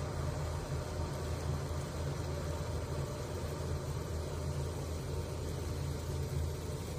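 Steady low rumble of a gas stove burner heating a steel pot of jaggery syrup, simmering while the jaggery melts.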